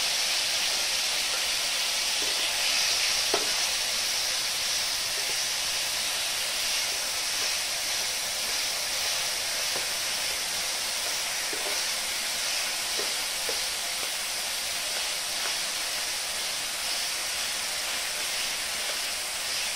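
Banana slices frying in hot ghee in a pan: a steady sizzling hiss, with a few light taps and scrapes of a spatula as they are stirred.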